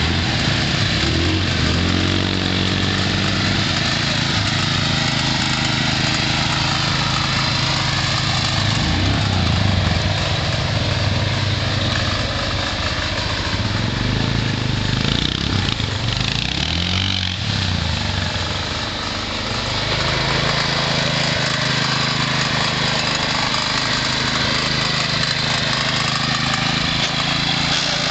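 John Deere garden tractor engine running under load while climbing dirt piles, its pitch rising and falling several times as the throttle and load change.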